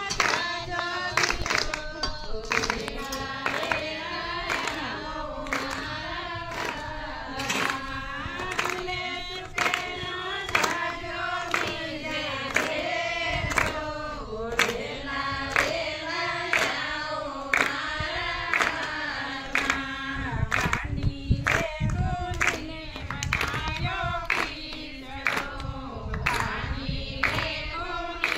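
Group of voices singing a Gujarati devotional Gor Maa song together, kept in time by steady hand clapping about once every two-thirds of a second.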